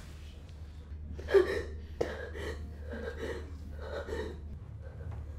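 A woman sobbing: a run of short, gasping, shaky breaths about two a second, starting about a second in, over a low steady hum.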